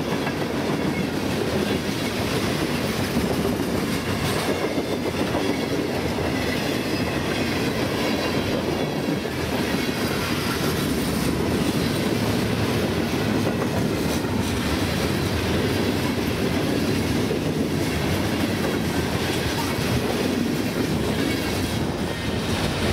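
Freight cars of a long mixed train (boxcars, tank cars, covered hoppers) rolling past: a steady rumble of steel wheels on rail with clickety-clack over the joints. The last car goes by near the end.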